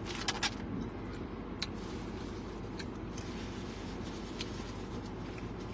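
Quiet eating and handling sounds: a few soft clicks and rustles from a paper napkin and foil food wrappers, over a steady low hum inside a car cabin.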